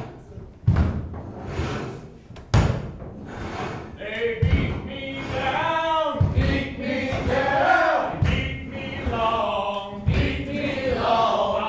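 Men's voices singing a cappella in harmony, a chain-gang work song, coming in about four seconds in. Under it, heavy thumps fall about every two seconds, keeping the beat.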